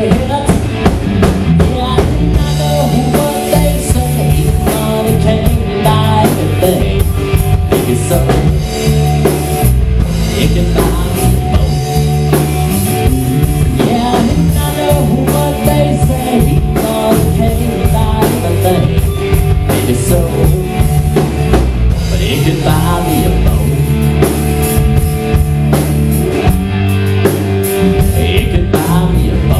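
Live rock band playing loud and steadily: electric guitar, electric bass and a drum kit with cymbals, through amplifiers.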